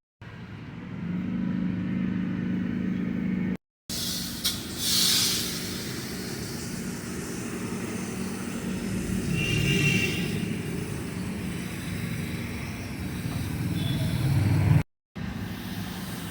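An engine running steadily, broken twice by sudden cuts, with a short hiss about five seconds in.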